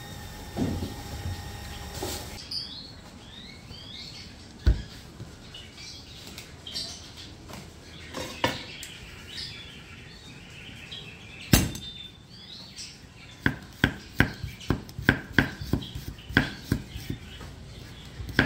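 Cleaver chopping fingerroot (temu kunci) rhizomes on a thick wooden chopping block: a couple of single knocks, then from about two-thirds of the way in a steady run of sharp knocks, about three a second. Birds chirp in the background throughout.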